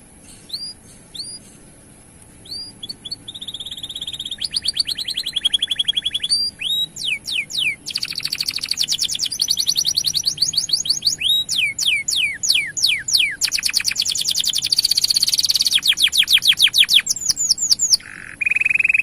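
Male domestic canary singing a long song. It opens with a few separate chirps, then breaks into fast trills of rapidly repeated notes that get louder and run nearly without a break from about four seconds in.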